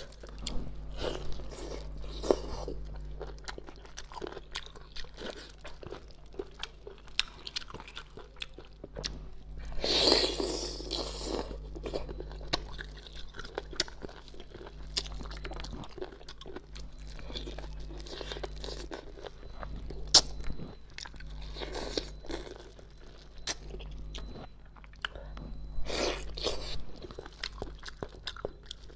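Close-miked chewing with many small crunches as the cartilage of a braised ray wing is eaten. Louder bursts of crunching come about ten seconds in and again near the end.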